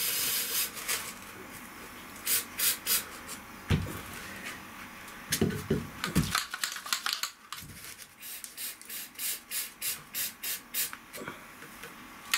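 Rocker Guard rubberized coating sprayed onto roof-line rivets: a hiss lasting about a second at the start, then a string of short hissing spurts, several a second in places.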